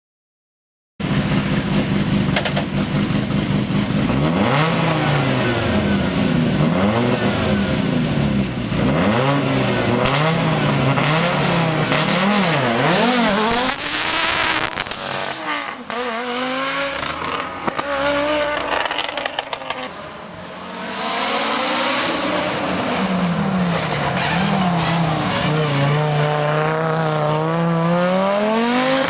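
Rally car engine revving hard on a special stage, its pitch climbing and dropping again and again through gear changes and lifts. It starts sharply about a second in, eases off briefly around two-thirds of the way through, then climbs again.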